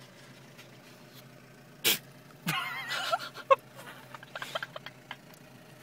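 A deer sneezes once, a short sharp burst about two seconds in. A wavering call and a few clicks follow.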